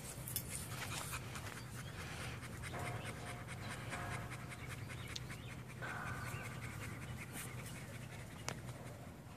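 A dog panting steadily, in quick, even breaths.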